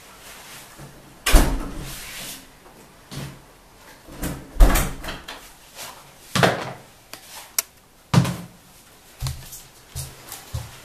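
A door shuts with a thud about a second in, followed by a series of knocks and clunks as shoes and a bag are handled and set down on a wooden floor.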